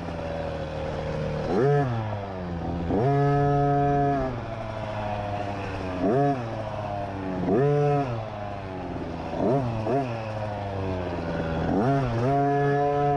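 50cc dirt bike engine revving up and dropping back again and again as the throttle is opened and closed, with sharp rises in pitch every second or two and a few bursts held at high revs for about a second.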